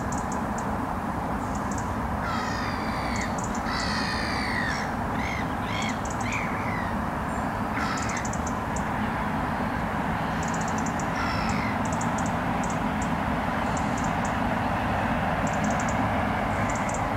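Bird calls: a run of several separate calls in the first half, then a couple more later, over a steady low background rumble. Faint short runs of rapid high ticks recur throughout.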